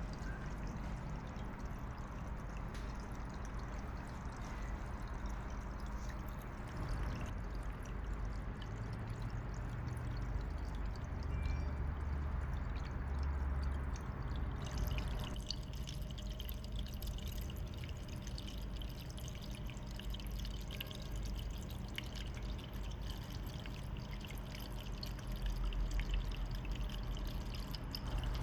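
Arita Lantern tabletop fountain running: water pumped up through the lantern trickles and splashes steadily over the stones in its basin. The splashing changes character abruptly a couple of times.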